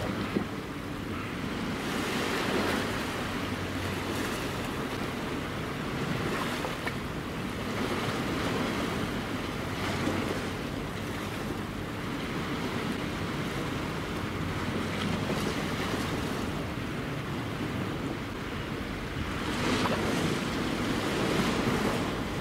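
Small sea waves washing against a concrete harbour breakwater, swelling and easing every few seconds, with wind buffeting the microphone.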